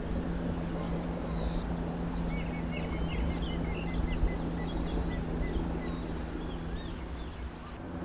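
Small boat's motor running with a steady low hum.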